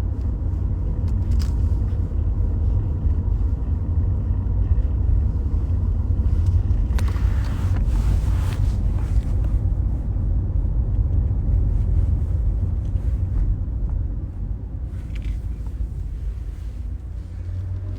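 Car running along a road, heard from inside: a steady low rumble of engine and road noise. Around the middle a hiss swells up for about two seconds, then drops back.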